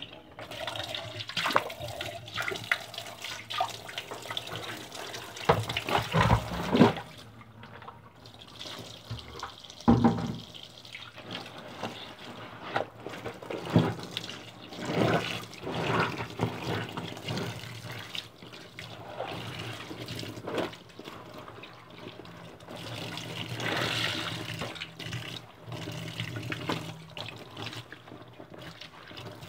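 Water sloshing and splashing in irregular bursts as laundry is washed in it.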